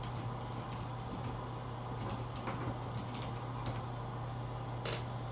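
Computer keyboard keys clicking at an uneven pace as a line of text is typed, over a steady low hum.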